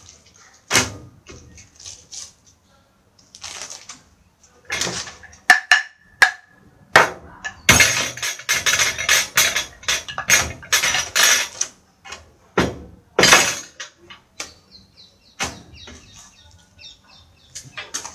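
Things being handled on a tabletop: sharp knocks now and then, and a few seconds of dense clattering and rustling around the middle.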